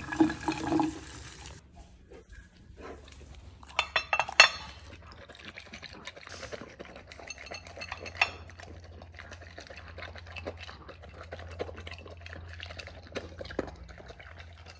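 Tap water running into a bowl of dry kibble, then a few sharp clinks as the bowl is handled and set down, followed by a Bernese mountain dog eating the wetted kibble from a raised bowl: a string of small quick crunches and clicks of teeth and tongue on the bowl.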